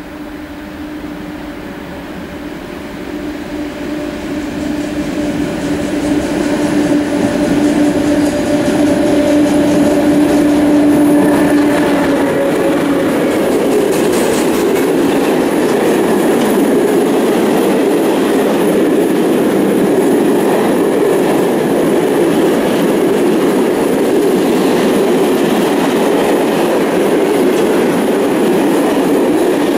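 Freight train passing a station at speed. The approaching locomotive gives a steady two-note hum that grows louder and stops about twelve seconds in. After that comes a loud, continuous rumble and clatter of open freight wagons rolling by on the rails.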